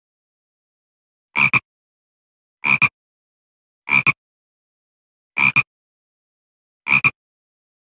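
Frog croaking as a sound effect: five short two-part calls, each like a quick 'rib-bit', about a second and a half apart with dead silence between.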